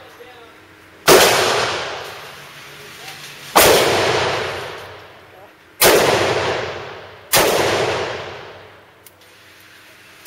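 Four handgun shots fired at a slow, uneven pace, each followed by a long echo that dies away down an indoor shooting range. A faint click comes near the end.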